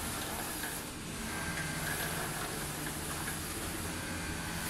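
CNC gantry drawing machine running as its head travels along the rails: a steady mechanical hum from the motors and carriage, with a higher whine that comes and goes.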